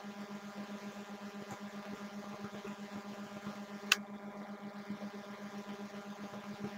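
Steady low electrical hum with a few even overtones, the background of a screen recording. A single sharp click, a computer mouse click, comes about four seconds in.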